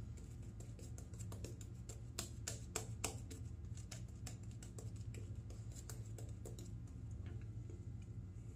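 Shaving brush working soap lather over the face: a run of soft, irregular wet clicks and crackles over a faint steady low hum.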